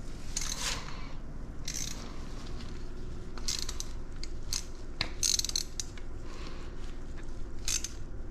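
Hand tools and metal parts being worked during an engine top-end rebuild: several short raspy, ratchet-like strokes a second or two apart, over a steady low hum.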